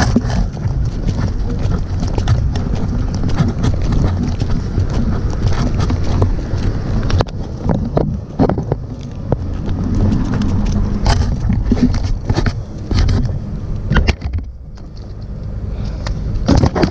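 Handling noise on a helmet-mounted camera's microphone as the helmet swings while being carried: a constant low rumble and rubbing, with many small knocks as it bumps against clothing and gear. It eases off briefly near the end.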